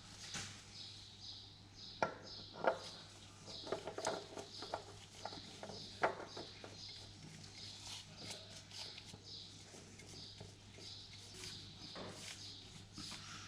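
Clicks and knocks of hand tools working the oil filter off a diesel pump engine, with three sharper knocks about two, two and a half and six seconds in, over a faint high chirping that repeats a few times a second.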